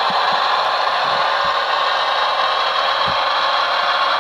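Simulated diesel railcar engine from a Zimo sound decoder, played through the model railcar's tiny onboard speaker. It is a steady, rattly running sound, tinny with no bass, with a few faint clicks.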